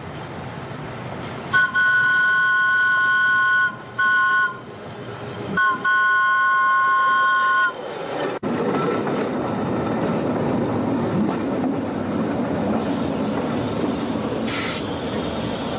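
Opicina tram's two-tone horn sounded three times, a long blast, a short one and another long one, as the tram approaches; then the steady rumble of the tram running on its rails.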